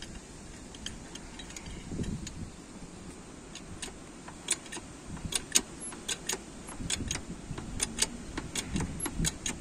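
Sharp metallic clicks and clanks, irregular and coming a couple of times a second from about halfway, with a few dull thuds, as a T-150K tractor's rear half-frame is jacked up and the worn vertical pin of its articulation joint shifts in its bushing.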